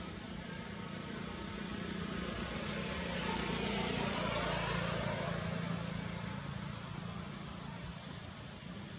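A motor vehicle passing by, its noise building to a peak around the middle and then fading, over a steady low hum.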